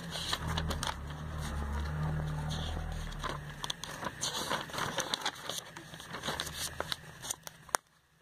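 Glossy catalogue pages being handled and turned by hand: repeated crinkling, scraping and soft paper clicks. A low steady rumble runs under the first three seconds, and a single sharp snap comes near the end.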